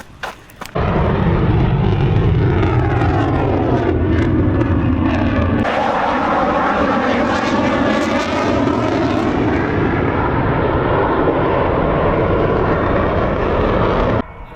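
Military jet flying past loud, its roar taking on a rippling, sweeping sound about midway as it passes overhead. The noise starts and stops abruptly.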